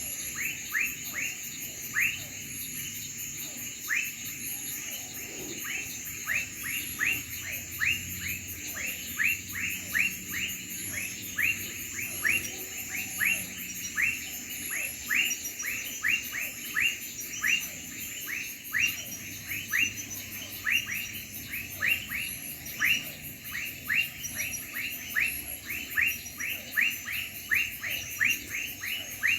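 A night insect chorus: crickets keep up a fast, very high trill. Over it, a short sharp downward chirp repeats about twice a second.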